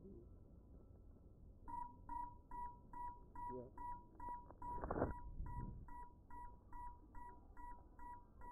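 FPV drone's lost-model locator beeper sounding after a crash into grass: short, high electronic beeps repeating about two and a half times a second, starting about two seconds in. About five seconds in, a brief rushing noise, a thump or rustle, sounds over the beeps.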